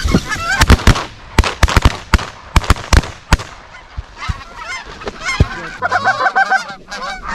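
A rapid volley of shotgun blasts from several hunters, about a dozen shots in the first three and a half seconds, with geese honking throughout. The honking grows stronger around six seconds in, after the shooting stops.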